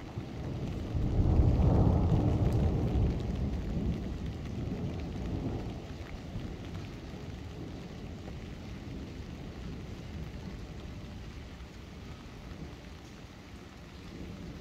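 A long rumble of thunder swells within the first second, is loudest about two seconds in and dies away over the next few seconds. Steady rain falls on the street throughout.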